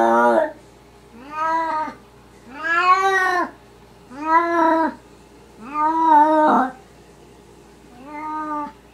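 Maine Coon cat meowing over and over: about six drawn-out calls, each rising then falling in pitch, roughly one every second and a half, the last one fainter.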